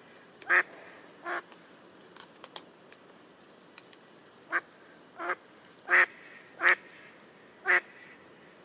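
Mallard quacking: seven short, loud quacks, two close together at the start, then a pause with a few faint ticks, then five more in the second half, spaced about a second apart.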